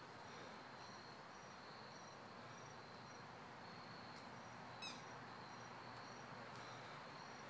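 Faint insect chirping: a short high chirp repeating about twice a second over a steady high trill, with one brief sharp chirp-like sound about five seconds in.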